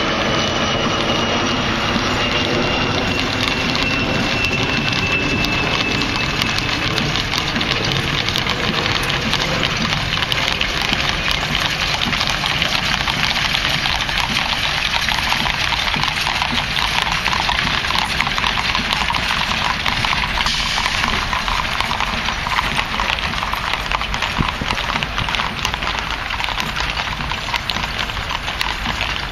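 Horses drawing a funeral caisson clip-clopping on a paved road, with marching footsteps. A passing jet's whine fades out over the first several seconds.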